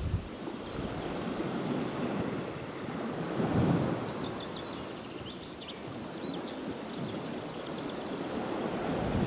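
Wind gusting over the microphone with the wash of surf behind it, rising and falling in slow swells. Faint high chirps come in about halfway, and a short rapid trill near the end.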